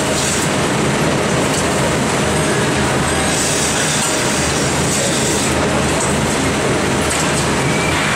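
Steady machine rumble and hiss of a rotary milking parlour running, with the hiss swelling now and then.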